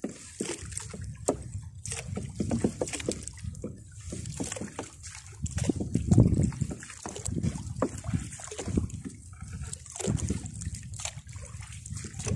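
Wet gill net hauled by hand over the side of a small boat: water dripping, splashing and sloshing off the mesh, with irregular small knocks and rustles, a little louder about six seconds in.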